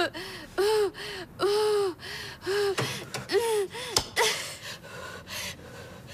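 A girl in labour letting out a run of short, pained whimpering cries and gasps, each rising then falling in pitch, about eight in the first four seconds, then quieter breathing. A sharp click, a light switch, about four seconds in.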